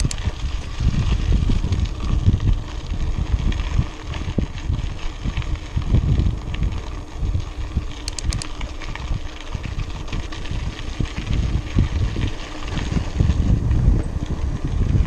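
Wind buffeting the microphone of a mountain biker's action camera while the bike rolls along a dirt road, an uneven low rumble that swells and fades, mixed with tyre noise and small clicks and rattles from the bike.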